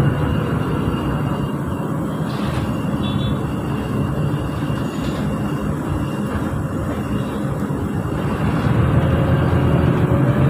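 Inside a moving TransJakarta bus: steady engine and road rumble, growing louder about three-quarters of the way through as the bus picks up speed.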